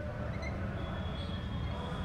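A marker writing on a whiteboard over a steady low room hum, with a faint thin high whine running through the middle.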